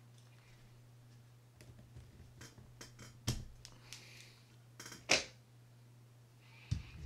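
Small clicks and light scraping from handling the palm side plate of a Shimano Bantam Curado fishing reel while trying to pull its ball bearing out, with two sharper clicks about three and five seconds in. A faint steady low hum runs underneath.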